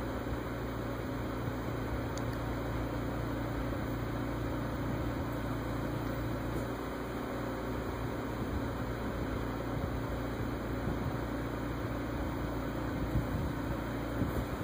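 Steady low hum with an even hiss over it, unchanging throughout and without speech.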